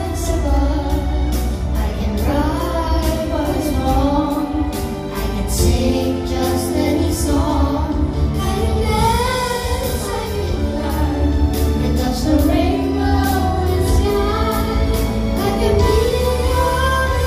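A woman singing a song over loud band accompaniment with a steady, heavy bass.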